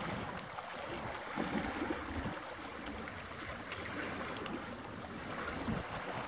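Outdoor wind and water ambience: a steady hiss of small waves lapping, with uneven low gusts of wind buffeting the microphone.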